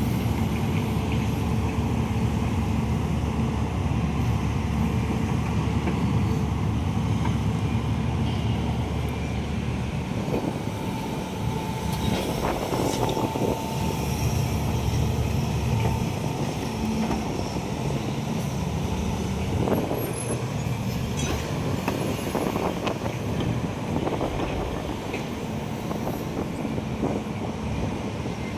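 Excavator's diesel engine running steadily with a continuous low rumble, the deepest part easing off about a third of the way in, with a few brief louder noises and a short whine around the middle.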